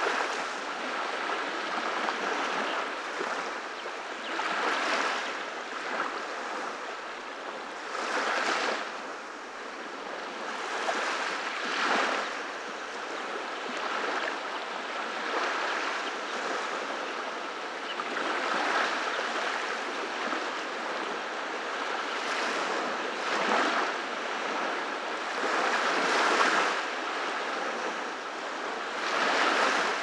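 Small waves breaking gently and washing up a sandy beach: a steady hiss of surf that swells every three to four seconds.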